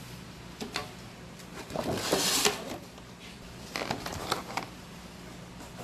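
Handling of toy packaging: crinkling of a clear plastic bag and taps and clicks of the box and plastic parts. There is a louder rustle about two seconds in and scattered clicks around it.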